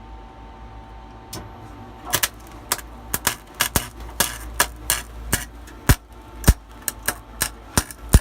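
Harbor Freight wire-feed welder arc sputtering: irregular sharp pops and crackles, a few a second and unevenly spaced, starting about a second in over a low hum, rather than a steady sizzle. The arc is not holding and the weld is not fusing, which the welders later put down to the wire speed being set too low.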